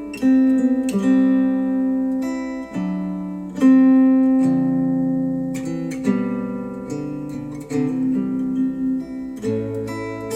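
Acoustic guitar music played back through Wharfedale Denton 80th bookshelf speakers: plucked and strummed chords, each sounding sharply and then ringing away.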